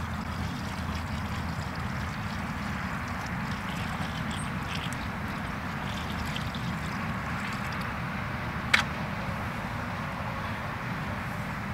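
Water poured from a plastic bucket into a bucket of dry mortar mix, over a steady rushing background. A single sharp knock comes about three-quarters of the way through.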